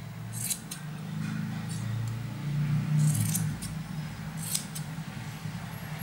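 Scissors snipping through woollen yarn several times at irregular spacing, trimming a yarn pom-pom into shape, over a low steady hum.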